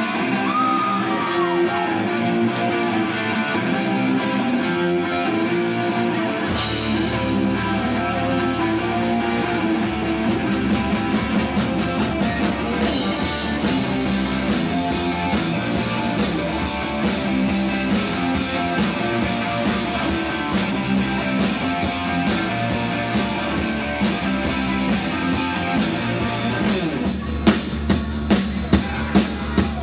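A live rock band plays an instrumental passage: electric guitar over bass and drums. The bass and a cymbal crash come in about six seconds in, and the drums hit hard and evenly near the end.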